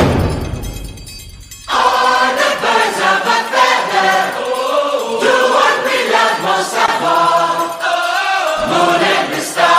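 A loud rushing noise fades away over the first second and a half, then choir music begins, with voices singing held notes.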